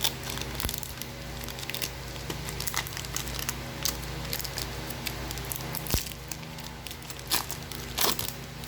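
Foil booster-pack wrapper crinkling and tearing as a trading card pack is opened, in irregular crackles and clicks, over a steady low electrical hum.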